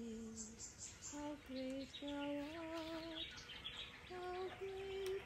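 A woman's voice carrying a slow hymn melody in long, wavering held notes, with birds chirping faintly behind.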